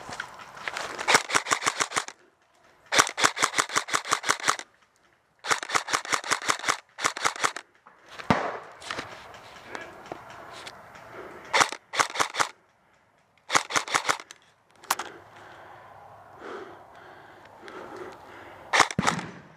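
Airsoft guns firing in rapid bursts of evenly spaced sharp cracks. There are about six bursts, from under a second to nearly two seconds long, the longest in the first half, and one single shot in between.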